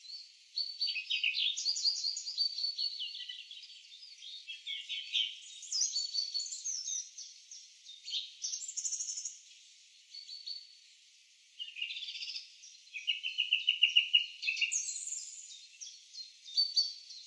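Birdsong from a nature sound-effect track: small birds chirping and trilling in quick runs of notes throughout, with a fast trill of repeated notes about three-quarters through as the loudest part.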